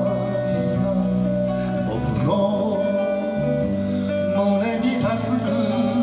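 Live acoustic guitar and electric bass playing a slow folk-style song, the guitar strummed over a steady bass line.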